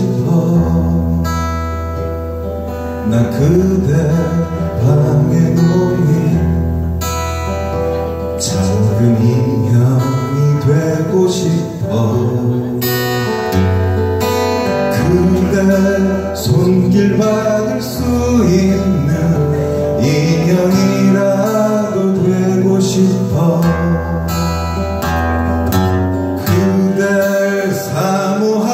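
A man singing a Korean song while strumming a steel-string acoustic guitar, his voice and guitar amplified through microphones.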